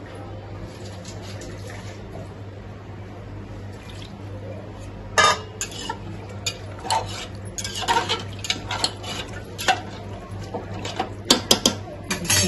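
A ladle scraping and clinking against a metal cooking pot as a thick meat curry is stirred. The stirring starts about five seconds in, with a few sharp taps near the end, over a steady low hum.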